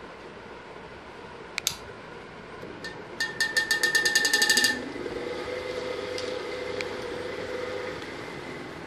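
Crompton Greaves Transair exhaust fan being run on a 2.5 µF capacitor: a click about a second and a half in, a rapid ticking rattle from about three seconds to nearly five, then a steady motor hum. On this capacitor it runs fast, which the owner says is going to kill the motor.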